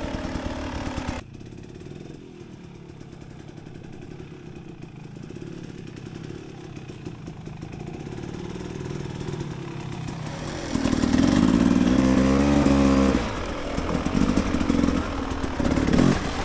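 Dirt bike engine on a trail. Its sound drops sharply about a second in to a low idle while the bike rolls, then it revs up loudly with rising pitch about two-thirds of the way through, followed by short blips of the throttle near the end.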